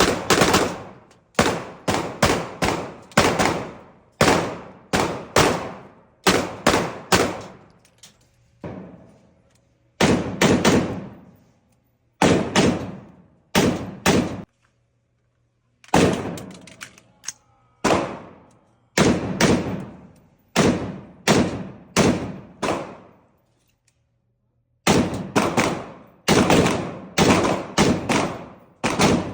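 Repeated gunshots fired in strings, single shots and quick pairs, each followed by a ringing tail, with a few pauses of a second or so between strings.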